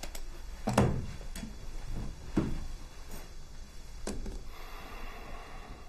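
A few light knocks and scrapes, about four spread over several seconds, from chairs and furniture being handled as people sit down.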